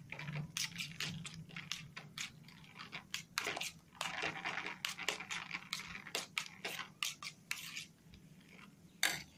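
Eggs and chopped onion being beaten with a spoon in a stainless steel bowl: quick, irregular scraping and clinking of the spoon against the metal, thinning out near the end, with one sharper click just before it stops.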